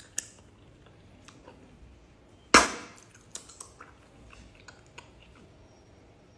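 Bubble gum bubble popping with a single sharp snap about two and a half seconds in, among faint wet chewing clicks.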